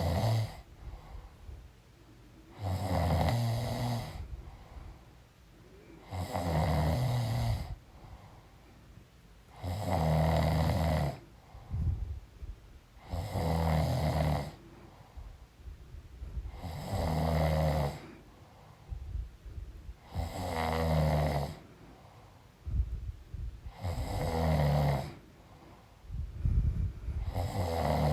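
A woman snoring in her sleep with a steady rhythm: about eight loud snores, each lasting about a second and a half and coming roughly every three and a half seconds, with fainter sounds between them.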